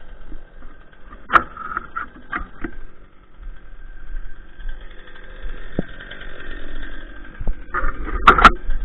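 An engine idling steadily, with sharp cracks of branches and brush underfoot, the loudest cluster near the end.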